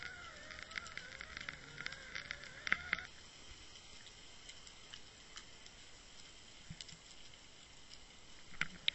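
Underwater sound picked up by a Water Wolf UW1.0 line-mounted camera: scattered clicks and crackles over a steady hiss, with a wavering whine that cuts off abruptly about three seconds in.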